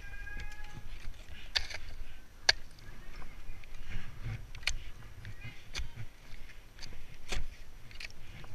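Ice tools being planted into a snow-covered slope: a string of sharp, irregular strikes, about one a second, with snow crunching and gear shuffling in between.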